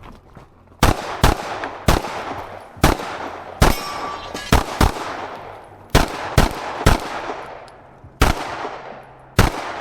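Glock pistol firing a stage string of about thirteen shots, some in quick pairs and others single, with uneven pauses of up to a second between them.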